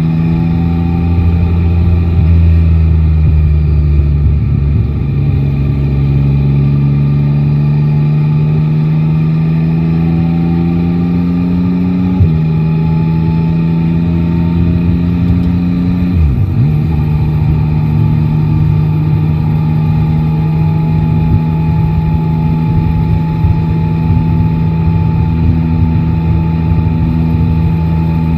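Yamaha Tracer 9 GT's inline three-cylinder engine under way. Its pitch climbs slowly for about twelve seconds, drops suddenly as it shifts gear, dips briefly again a few seconds later, and then runs nearly steady.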